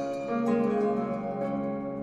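Background music: a slow melody of plucked-string notes over held tones.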